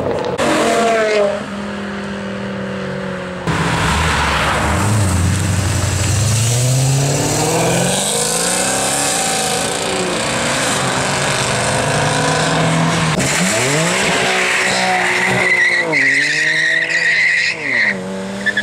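High-performance cars accelerating hard away one after another, their engines revving up and dropping between gears; one is a Mercedes C63 AMG Black Series with its big V8. Near the end the tyres squeal for about two seconds as a BMW M3 spins its wheels pulling away.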